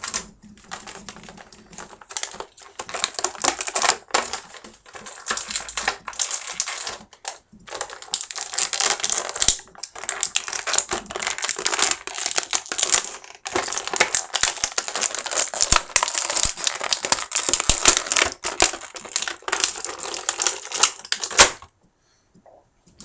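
Clear plastic bag crinkling and crackling in hands as an action figure is worked out of it. The crinkling comes in long stretches with brief pauses and stops suddenly near the end.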